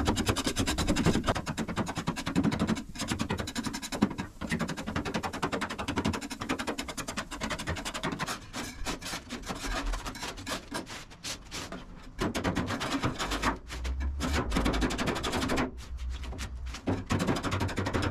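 Hand scraping and rubbing on bodywork: repeated rasping strokes with short pauses and a few knocks.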